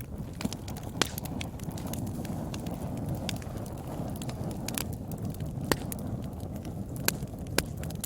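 Wood fire burning: a steady low rush of flame with scattered sharp crackles and pops, a few of them loud.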